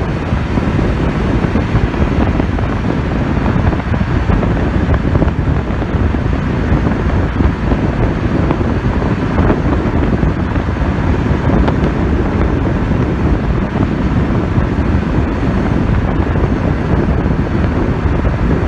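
Wind buffeting a phone microphone held out of the window of a car moving at highway speed, a steady loud rush heaviest in the low end, with road and engine noise beneath.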